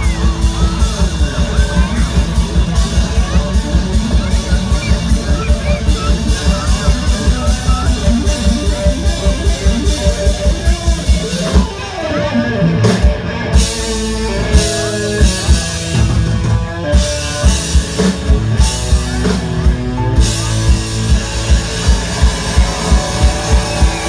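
Live rock band playing amplified through a PA: a drum kit keeping a steady beat of about two a second under guitar. About halfway the steady beat breaks off for several seconds, then picks up again.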